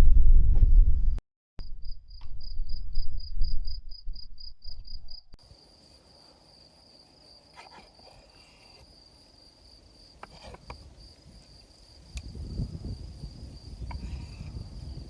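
Crickets chirping, first in quick pulses of about five a second, then running together into a steady high trill. A few light knocks sound in the middle. Low rumble is heard at the start and again near the end.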